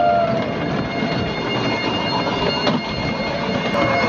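Miniature ride-on train running along its track: a steady high-pitched whine over a rumbling rattle, with one sharp knock about two and a half seconds in.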